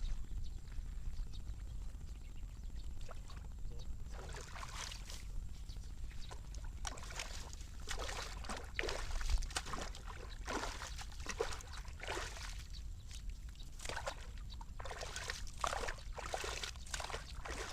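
Shallow water sloshing and splashing: a string of short, irregular splashes starting about four seconds in, over a low steady rumble.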